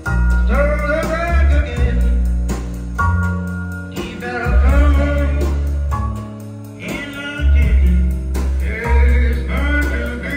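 Blues song played from a vinyl LP on a hi-fi system: a male voice singing over guitar and a deep, sustained bass line.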